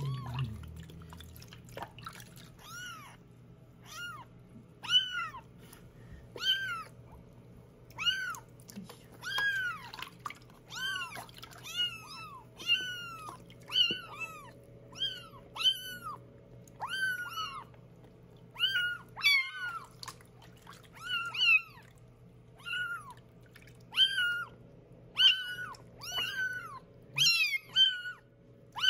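Very young kittens meowing repeatedly while being bathed, high-pitched calls that rise and fall, about one a second.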